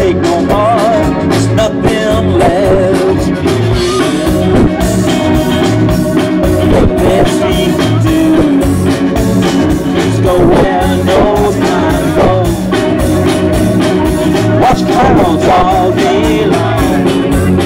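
Live rock band playing through a stage PA: electric guitars, electric bass and keyboard over a steady beat, with a man singing the lead.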